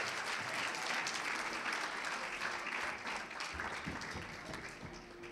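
Audience applauding, many hands clapping at once, dying down gradually toward the end.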